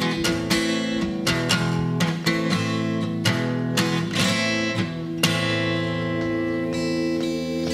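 Background music: an acoustic guitar strumming chords, with one chord left ringing from about five seconds in.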